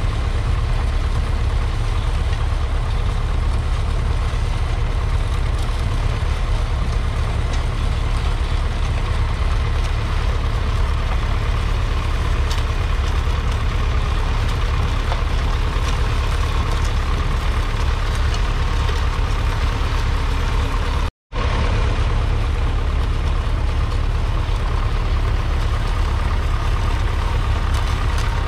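1965 Allis-Chalmers ED40's 2.3-litre four-cylinder diesel engine running steadily under load as the tractor pulls a two-furrow trailed plough. The sound cuts out for a split second about three-quarters of the way through.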